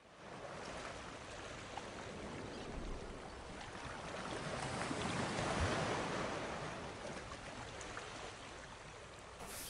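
A rushing noise with no tone or rhythm that swells to its loudest about halfway through and then fades.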